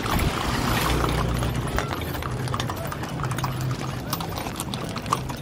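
Horses' hooves clip-clopping on an asphalt road as a line of horse-drawn covered wagons passes, with one sharper click near the end.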